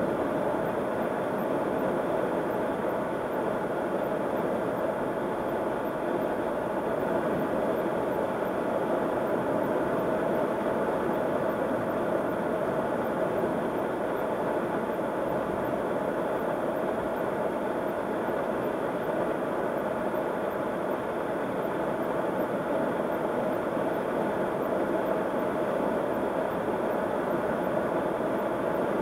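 Steady road and tyre noise with a low engine hum, heard inside the cabin of a car cruising at highway speed on a concrete highway.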